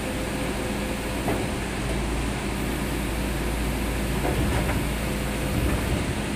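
Hydraulic excavator's diesel engine running steadily while the boom and bucket work, with a few short knocks about a second in and again past the middle.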